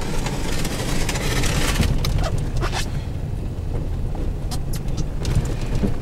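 Inside the cabin of a vehicle driving on snow-covered roads: a steady low engine and road rumble, with a hiss of tyre noise over the first two seconds that then fades, and a few faint ticks.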